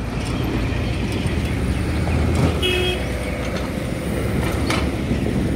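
Steady low outdoor rumble, with a single short horn toot about two and a half seconds in.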